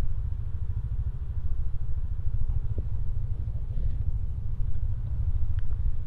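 Low, steady wind rumble on the microphone of a moving motor scooter, with the scooter's running noise underneath.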